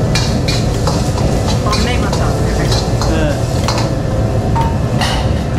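Busy wok station: a steady loud rushing noise under repeated sharp clinks and scrapes of metal utensils against pans, a few of them ringing briefly.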